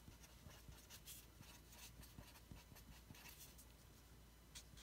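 Faint scratching of a felt-tip marker writing on paper in short strokes, over a low steady room hum.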